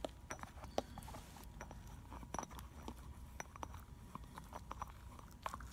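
Faint, scattered clicks and taps of stamped-steel rocker arms and pivots being handled with gloved hands while assembly lube is squeezed onto them, over a low steady hum.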